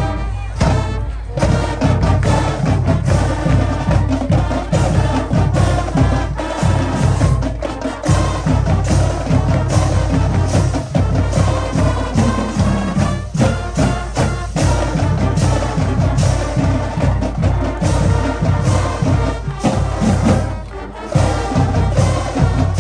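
High school marching band playing a piece, with wind instruments carrying the melody over a steady beat of drums.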